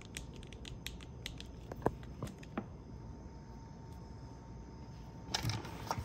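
Faint, scattered small clicks and light taps of a battery connector and pliers being handled, mostly in the first half, then a quiet stretch and a brief rustle near the end.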